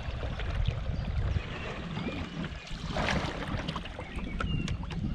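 Wooden otter-tail canoe paddle working through the water in a C stroke: swirling and dripping water with small splashes, and a louder splash about three seconds in as the blade is pulled under the hull. A low wind rumble on the microphone underlies it.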